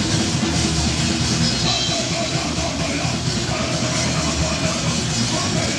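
Heavy metal band playing live and loud: full band with drum kit, a dense continuous wall of sound.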